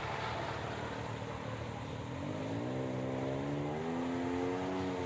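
A motor vehicle's engine speeding up: its pitch climbs steadily for a couple of seconds from about two seconds in, then holds steady.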